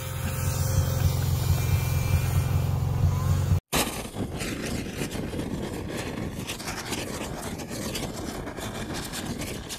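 Snowmobile engine running steadily while the sled ploughs through deep powder; it cuts off abruptly about three and a half seconds in. A hissing, crackling whoosh sound effect follows.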